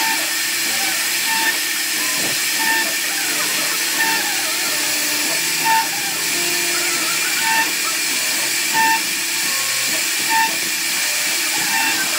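CNC wood-carving router running and cutting into wood: a steady high hiss, with a short tone recurring every second or two.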